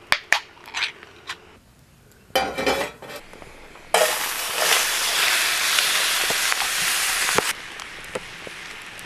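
Camp cooking sounds: a few sharp clicks and clinks, then a loud, steady hiss that starts suddenly about four seconds in and cuts off just as suddenly some three and a half seconds later.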